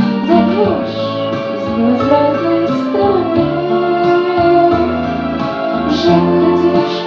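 A woman singing held, wavering notes with vibrato over a steady instrumental accompaniment.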